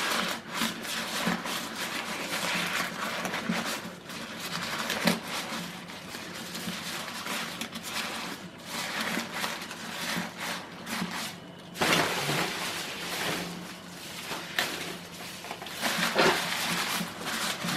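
Fresh silver-leaf mountain gum eucalyptus leaves rustling and crunching as they are pressed by hand into a metal pressure cooker pot. The rustling is irregular, with louder crunches about five, twelve and sixteen seconds in.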